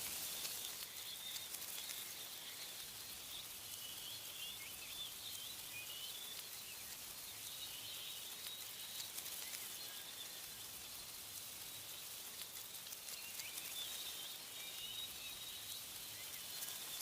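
Small birds chirping and twittering in spells of short high calls, over a steady hiss of wind in tree leaves. The calls thin out midway and pick up again near the end.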